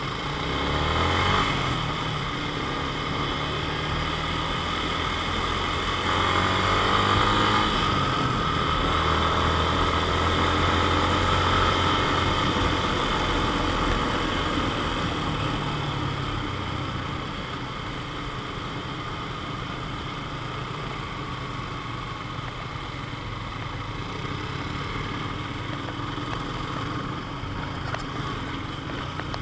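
Yamaha Sniper underbone motorcycle's single-cylinder engine running while riding, pulling harder with a rising note from about six seconds in and easing off after about sixteen seconds.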